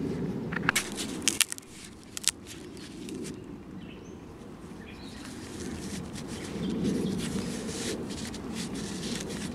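Rustling and dry crackling of hands working a split, hollow plant stalk stuffed with paper towel, with a cluster of sharp clicks in the first two seconds and scattered clicks later.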